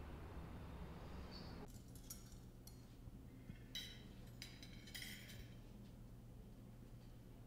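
Dishes clinking faintly off to one side, in a few short clusters of light ringing taps over quiet room tone. A low hum drops away at about a second and a half in.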